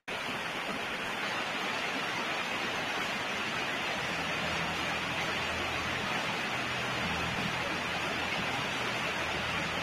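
Steady background hiss with a faint low hum underneath.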